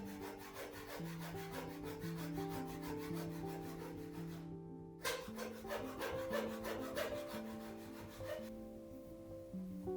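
A hand tool rasping back and forth on wood in regular strokes, about three a second, pausing briefly midway and stopping near the end. Soft background music with held notes plays throughout.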